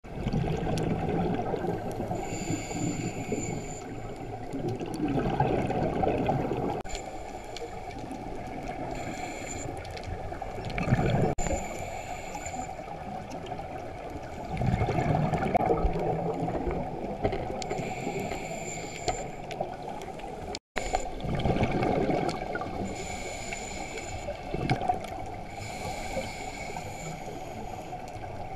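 A scuba diver breathing through a regulator, heard underwater. Each inhale is a hiss with a faint high whistle, and each exhale is a rush of bubbles. The cycle repeats every few seconds.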